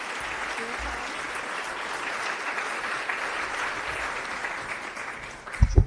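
Audience applauding, a dense steady clapping that fades out near the end, followed by a couple of short low thumps.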